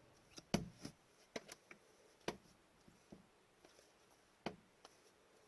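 Trading cards being handled and flipped through one at a time: a scattering of soft, short clicks and taps, about nine in all.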